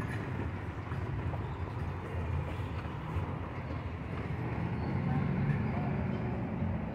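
Steady low rumble of a horse-drawn carriage rolling along a city street, heard from on board.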